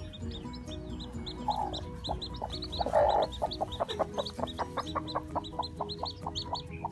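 Mother hen clucking, with a louder harsh call just before halfway and then a quick even run of clucks, about five a second. Newborn chicks peep throughout, many short high downward notes.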